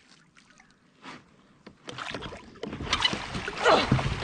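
Chinook salmon thrashing in the water as it is scooped into a landing net beside a kayak, a loud splashing that starts about two seconds in and grows toward the end.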